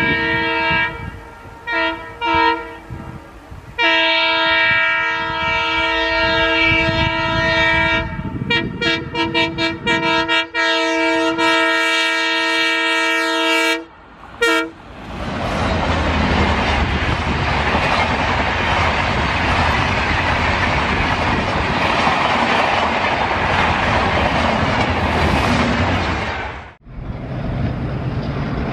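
Indian Railways diesel locomotive's horn sounding in several long blasts, broken up and choppy partway through, for about the first half. Then the passenger train passes close: loud engine and running noise with wheels clattering over the rail joints. It cuts off sharply near the end.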